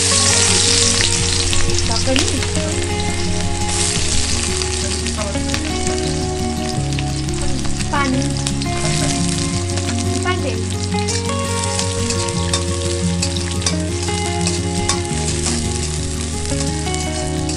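Food sizzling and frying in a pan over an open cooking fire, with small crackles and stirring. Background music with held low notes changing every few seconds runs underneath.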